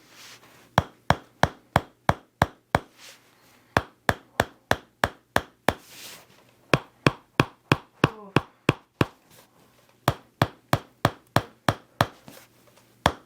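Toksen therapy: a wooden mallet tapping a wooden chisel pressed against a patient's shoulder-blade muscles. The taps come in quick runs of about three a second, with short pauses between the runs.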